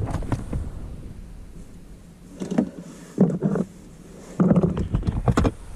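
Handling noise: several short bursts of clicking and rustling as small parts are handled and moved about, with quieter pauses between, the last burst the longest and loudest.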